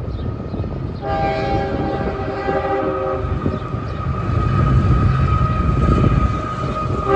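Train horn sounding over the rumble of a train. One long blast starts about a second in, another starts at the very end, and the rumble grows louder toward the end.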